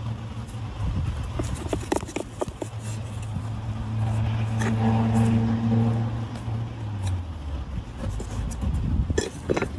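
A low, steady engine-like hum that swells about four seconds in and fades again by seven seconds. Scattered light taps and crinkles come through it as dough is handled on foil.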